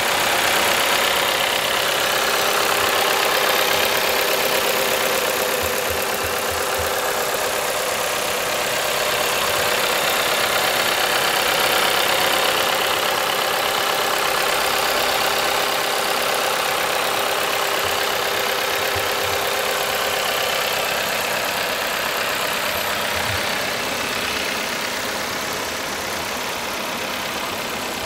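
Volkswagen 1.4 TSI turbocharged four-cylinder petrol engine idling steadily, heard up close in the open engine bay.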